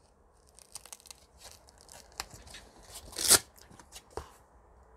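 Hook-and-loop sanding disc ripped off the pad of a Parkside PEXS 270 C3 random orbital sander: one short, sharp rip about three seconds in. Light rustles and clicks of the paper disc being handled against the pad come before and after it.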